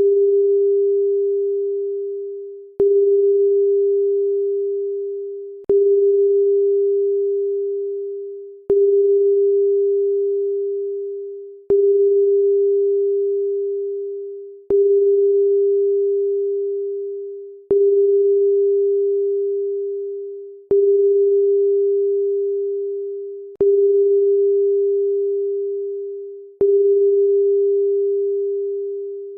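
Loud electronic pure tone at one pitch, restarting with a click about every three seconds and fading away before each restart, ten times over.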